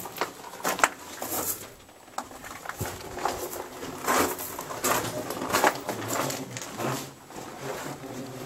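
Irregular crunching and scuffing of footsteps on gritty debris in a small enclosed space.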